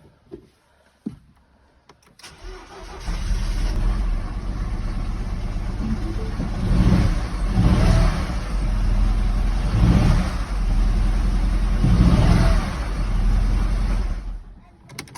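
2009 Mini One engine cranking and starting about two seconds in, idling and blipped up four times, then switched off near the end. It runs with a knock that is taken for a mechanical engine fault.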